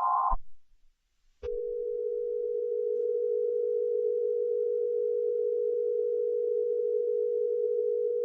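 A short electronic chord of several tones that cuts off with a click, then about a second of silence, then another click and a single steady, unwavering electronic tone with a faint hiss under it, like a telephone dial tone.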